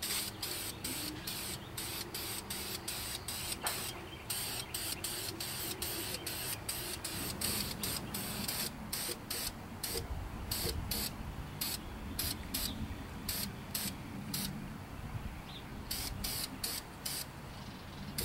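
Primer being sprayed onto an engine block in many short hissing bursts, roughly two a second, with brief pauses between runs of bursts.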